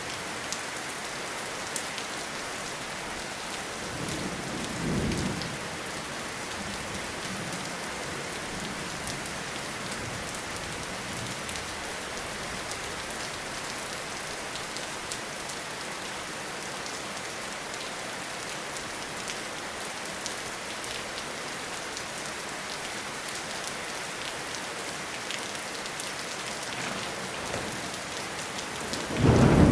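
Steady heavy rainfall with individual drops ticking on leaves and surfaces. A low rumble of thunder swells about four seconds in, and a louder, closer one breaks at the very end.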